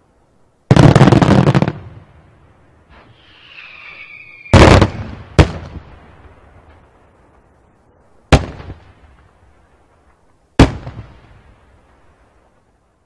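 Daytime aerial firework shells bursting. First comes a rapid volley of reports lasting about a second, then a brief whistle falling in pitch, then four separate loud bangs a few seconds apart, each with an echoing tail.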